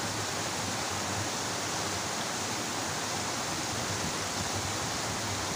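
Steady rush of water from a small cascade pouring into a muddy stream.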